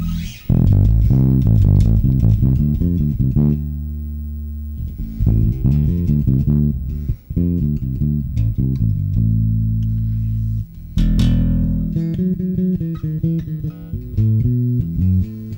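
Ernie Ball Music Man StingRay 4 electric bass played through a Markbass Little Mark Tube 800 amp with its VLE tone knob turned all the way up, which cuts the top of the tone off. It plays a riff of quick runs broken by a few longer held notes.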